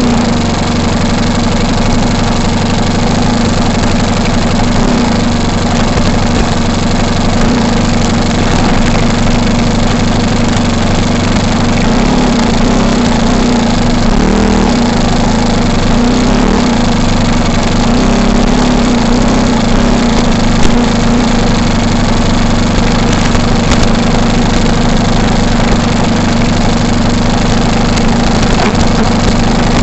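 Four-stroke glow engine of a NexSTAR 46 RC model plane running steadily, with no big changes in throttle.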